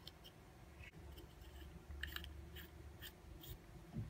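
Faint handling noises: scattered small clicks and light rubbing of plastic as a small LED bulb is fitted into its corded lamp socket.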